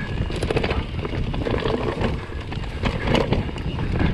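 Vitus Sommet 29 full-suspension mountain bike riding down a rough dirt trail, heard from a chest-mounted camera: a steady low rumble of tyres and wind, broken by many quick rattles and clacks from the bike over bumps.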